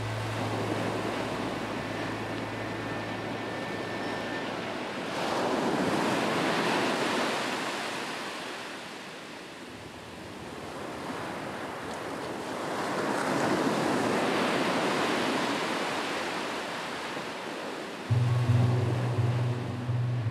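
Ocean surf washing onto a beach, swelling and fading twice. Music dies away in the first few seconds and a new song starts near the end.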